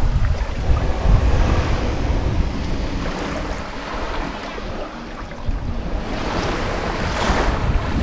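Wind buffeting the microphone over the wash of sea waves, with a louder rush of water about seven seconds in.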